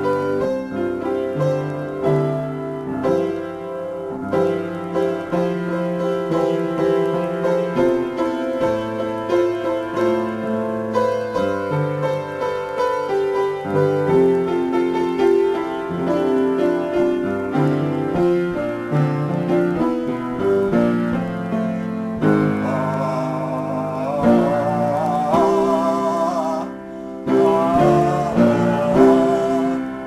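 Piano improvisation: chords and melody played continuously at a steady loudness. About two-thirds of the way through, a higher wavering line joins above the chords.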